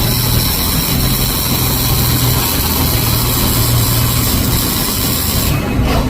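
Robotic MIG welding in progress: a steady loud hiss over a low hum, with the high hiss falling away shortly before the end.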